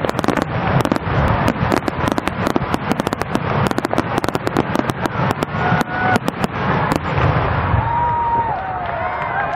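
Fireworks bursting in a rapid run of crackling bangs that thins out about seven seconds in. Crowd voices then rise in cheering.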